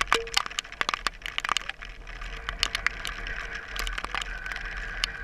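Dirt bikes idling while stopped, a steady low engine note under many irregular sharp clicks and taps on the helmet-mounted camera. The clicks are thickest in the first couple of seconds.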